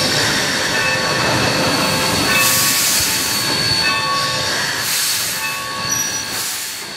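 Steam locomotive and its passenger train rolling around a curve, the wheel flanges squealing in several high tones that come and go over steady running noise and occasional rushes of hiss. It fades near the end.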